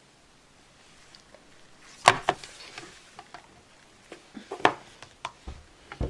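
Toy blind-bag and blind-box packaging being handled and opened by hand: irregular sharp clicks and crinkles, the loudest about two seconds in and again just before five seconds.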